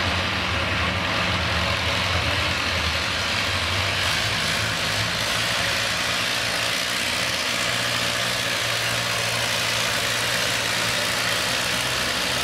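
Classic red Farmall pulling tractor's engine idling steadily while hooked to the sled before its pull, with no revving.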